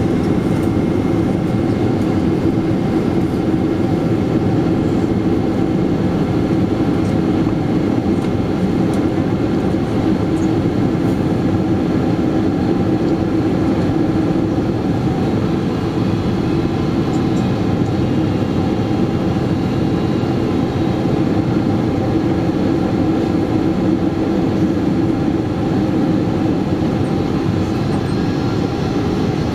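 Steady cabin noise inside a Boeing 777-200ER descending on approach: an even roar of airflow and GE90 engines, heard from a window seat over the wing, with a faint high whine on top.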